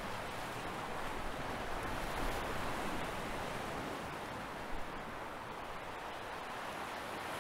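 Steady rushing noise of wind and water on the deck of a fireboat moving through the harbour.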